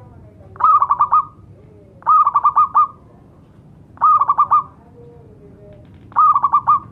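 Zebra dove (perkutut) calling: four short phrases of quick, ringing cooing notes, about five notes each, repeated roughly every two seconds.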